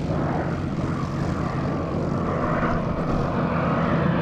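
Hawker Sea Hurricane's Rolls-Royce Merlin V12 engine running steadily with its propeller, a continuous drone from the aircraft in display flight.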